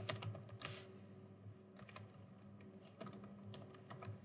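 Computer keyboard being typed on, quick key clicks in short bursts with pauses of about a second between them, over a faint steady low hum.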